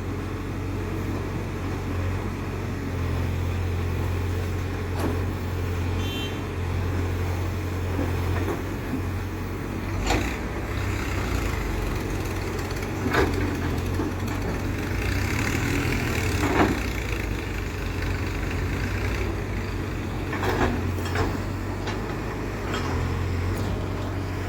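Case 851EX backhoe loader's diesel engine running steadily at a low hum, with a few sharp knocks spread through, the loudest past the middle.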